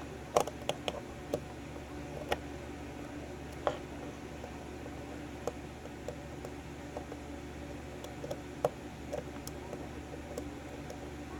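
Scattered light clicks and taps of a lock and small tools being handled at a workbench vise, over a steady low hum.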